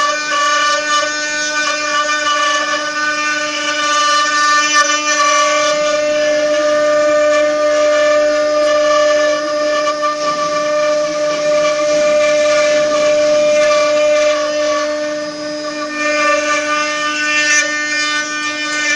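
Multi-spindle 4-axis CNC wood router running, its spindles holding a steady high whine while the bits carve wooden furniture legs, with a rough cutting hiss over it.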